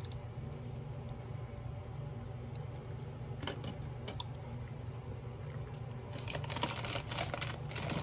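Gummy candy being chewed with the mouth closed: soft, sticky mouth clicks and smacks, a couple about halfway through and a cluster over the last two seconds, over a steady low hum.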